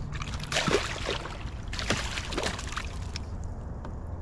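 Water splashing in two bursts, about half a second in and again near two seconds, as a hooked snakehead thrashes at the surface beside the boat.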